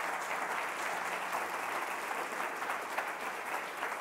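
Audience applauding, many hands clapping at once in a dense, even patter.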